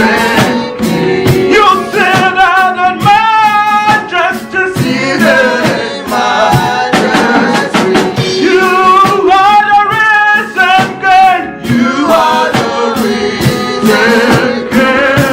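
Live worship music: a voice singing long, wavering notes over a band with drums.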